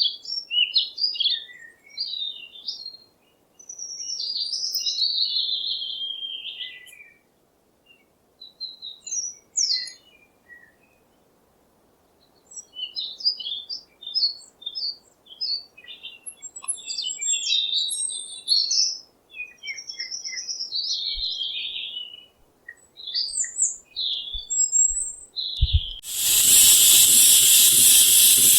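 A songbird singing: quick, varied chirps and warbled phrases with short pauses. About 26 seconds in this gives way suddenly to a loud, steady hiss.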